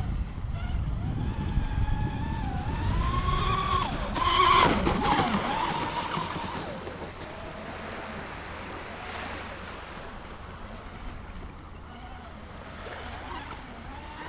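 Pro Boat Zelos 36 radio-controlled catamaran's twin brushless electric motors whining across the water, the pitch rising and falling with the throttle. It is loudest about four and a half seconds in, with a sharp drop in pitch, then fades as the boat runs off. Wind rumbles on the microphone over the first few seconds.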